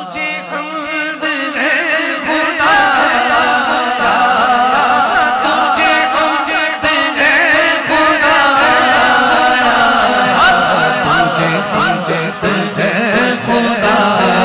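A man singing Urdu devotional verse solo into a microphone in long, wavering, ornamented lines, naat-style.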